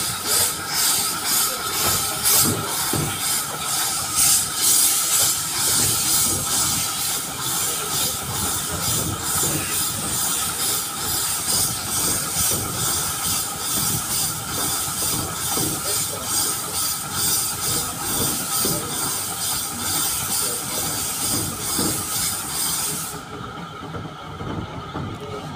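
Narrow-gauge steam locomotive working a train, its hissing steam beating rapidly and evenly, about three to four beats a second, over the rumble of the coaches on the track. Near the end the hiss cuts off suddenly, leaving only the quieter running of the train.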